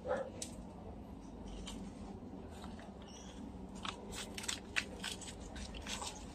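Scissors snipping through a hanging plant's dry, matted roots and stems in the pot: a run of short, crisp clicks from about four seconds in, with a few more near the end.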